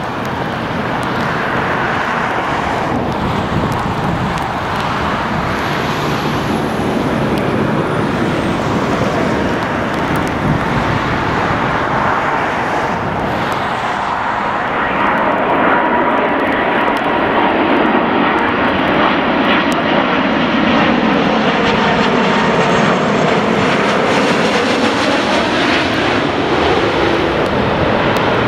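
Airbus A330-300's Rolls-Royce Trent 700 jet engines on final approach with gear down. The aircraft passes close overhead, a steady jet rumble that grows louder about halfway through, with a thin whine rising out of it and the sound sweeping as it goes over.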